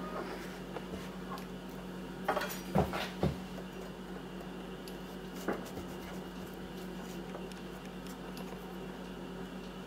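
A chef's knife and a large bolete mushroom knocking against a ceramic plate: a quick cluster of clinks and knocks about two to three seconds in, one lighter tick a couple of seconds later, over a steady low hum.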